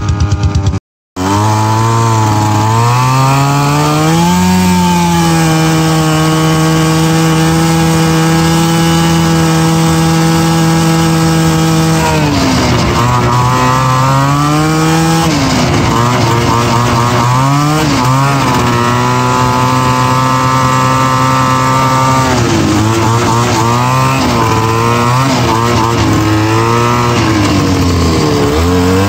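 Roll-O-Flex 440 snowmobile's two-stroke engine running under way, its revs rising and falling with the throttle and dropping briefly about twelve seconds in.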